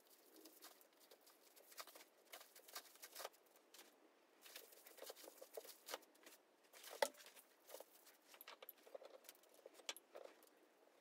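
Faint rustles, taps and clicks of hands working a bamboo sushi mat, nori sheets and sushi rice, with one sharper click about seven seconds in.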